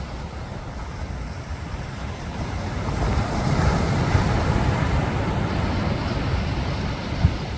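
Ocean surf washing on a beach, a wave swelling louder about three seconds in and then easing, over a steady low rumble.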